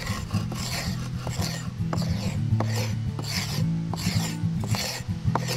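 Hand tool scraping the charred wood inside a dugout canoe hull in repeated rasping strokes, about two a second, clearing loose charcoal after a burn. Background music plays underneath.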